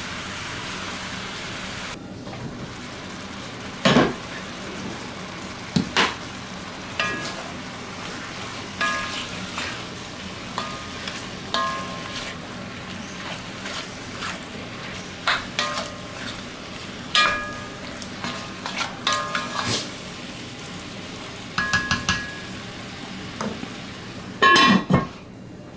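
Beef stew meat sizzling as it browns in a cast-iron Dutch oven, with a wooden spoon knocking and scraping against the pot and short ringing clinks. A lid clatters onto the pot near the end.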